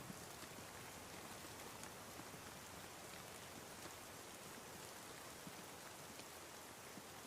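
Faint, steady rain: an even hiss with scattered drop ticks.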